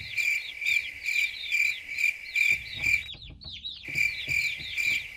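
Rhythmic high-pitched chirping, about two or three chirps a second over a steady high tone, breaking off for under a second a little past the middle.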